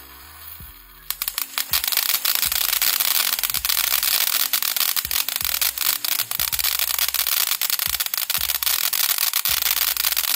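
A Brothers 'One Man Band' fountain-aerial hybrid firework, starting about a second in with a dense, loud hiss of sparks and rapid crackling that keeps on steadily.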